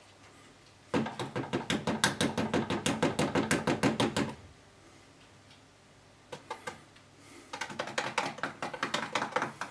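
Rapid tapping against the rim of a plastic tub, about seven taps a second in two runs with a few single taps between: knocking excess tempered couverture off a freshly dipped waffle.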